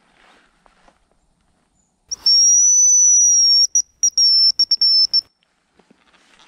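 Hazel grouse decoy call blown close by: a loud, thin, high whistle about two seconds in, one long held note followed by a quick run of short broken notes, imitating the hazel grouse's song to lure a bird in. Faint footsteps in dry leaf litter before and after.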